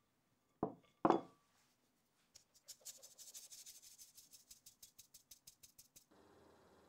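Two loud knocks about half a second apart, about a second in. Then a fine-mesh sieve of flour is tapped by hand over a glass bowl: a quick, even run of light taps, about six a second, with the soft hiss of flour falling through the mesh. Near the end a steady low hum takes over.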